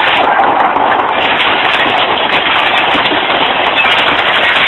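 Hail pelting down hard: a loud, steady clatter of countless small impacts.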